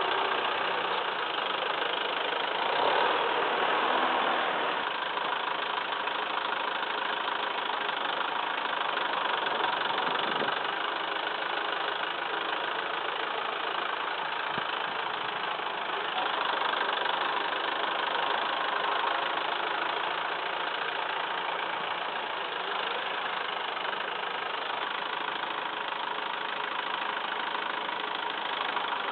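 Massey Ferguson 2635 tractor engine running steadily, growing a little louder twice, a few seconds in and again about halfway through.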